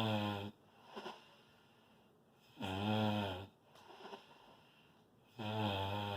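Loud snoring from a sleeper: three pitched snores, each about a second long, repeating roughly every three seconds, with a soft short breath between them.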